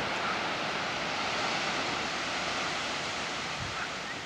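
Steady wash of sea surf on rocky ledges, with wind buffeting the microphone.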